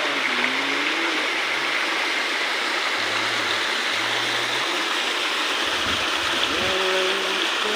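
Steady rush of a waterfall, with faint voices in the background now and then.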